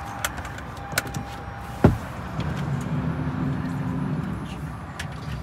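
Small clicks and a sharp knock about two seconds in as a person climbs into a minivan through its sliding side door, followed by a low steady hum for about two seconds.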